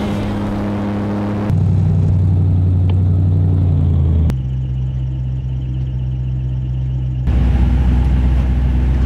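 Engine running with a steady low drone. Its pitch and loudness change abruptly three times, about a second and a half, four seconds and seven seconds in.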